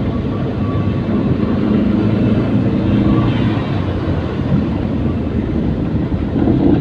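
Steady engine and road noise of a vehicle driving through traffic.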